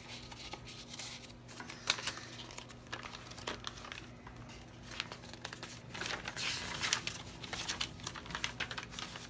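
Paper pages and cardstock cards of a thick handmade altered-book junk journal rustling and crinkling as they are handled and turned by hand, with small sharp flicks and taps, busiest about six to seven seconds in.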